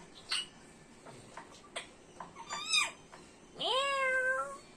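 Pet parrot making meow-like calls: a short call that rises and falls, then about a second later a longer, louder one that swoops up and holds. A few faint clicks come before them.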